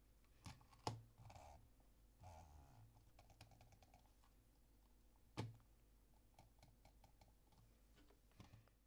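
Faint handling sounds of a Logitech computer mouse: two sharp knocks, about a second in and again past five seconds, with brief light scraping and a scatter of small clicks in between.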